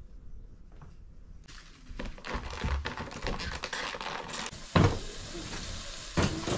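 Sliced raw meat sizzling and crackling on a hot tabletop cooker, the sizzle starting about a second and a half in, with two sharp clatters of utensils against the pan near the end.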